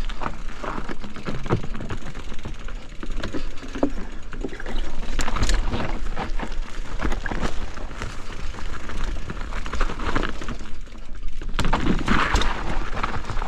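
Mountain bike riding down a rough trail: tyres rolling and crunching over dirt and roots, with frequent knocks and rattles from the bike over bumps and a steady rumble of wind on the microphone.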